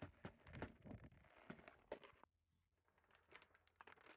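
Plastic container cracking and crackling as a car tyre rolls over and crushes it: a quick run of sharp cracks, with a sharp snap about two seconds in.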